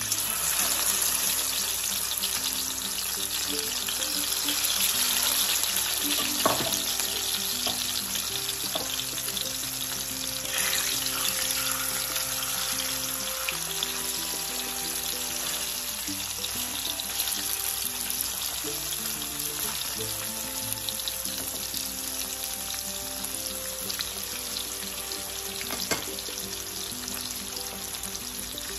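Marinated red snapper pieces sizzling in hot olive oil as more pieces are laid into the pan, with a couple of sharp clicks. Background music plays throughout.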